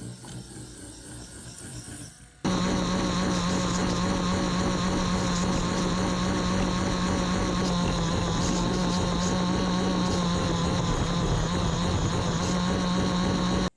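Small electric motor running with a steady, unchanging whine that starts abruptly about two and a half seconds in, after a stretch of quieter noise, and cuts off suddenly at the end.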